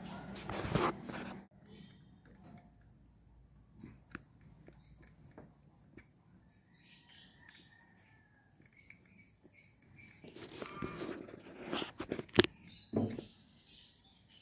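Multimeter continuity beeper giving about ten short, high-pitched beeps of varying length at irregular intervals, with handling rustle and clicks and one sharp click near the end.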